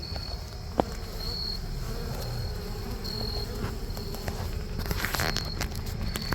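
Crickets chirping in short, evenly repeated high pulses over a low buzzing of honeybees from the opened colony in the log. A sharp click comes about a second in, and a brief rustle comes near five seconds.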